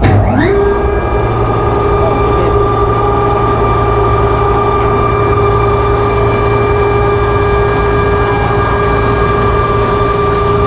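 Electric davit winch motor starting up, its whine rising quickly in pitch over the first half second and then running at a steady high pitch as it heaves the lifeboat up on its falls.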